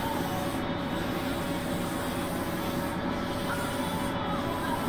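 Airbrush spraying paint onto a balsa fishing lure: a steady hiss of air over a steady low hum.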